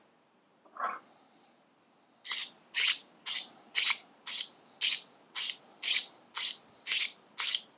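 Fillet knife being honed on a sharpening rod: the blade is drawn along the rod in short scraping strokes, about two a second, starting about two seconds in.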